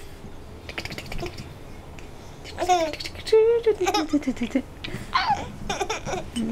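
Baby laughing and squealing in several short high-pitched bursts, with babbling between them, the first about two and a half seconds in.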